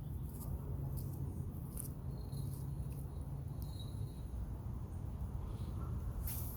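Outdoor ambience: a steady low rumble, like wind on the microphone, with scattered faint clicks and two short high chirps, one about two seconds in and one about four seconds in.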